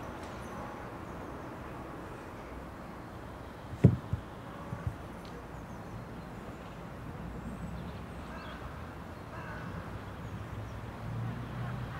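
Crows cawing faintly over a steady low outdoor hum. A sharp thump about four seconds in, the loudest sound here, is followed by a couple of softer knocks.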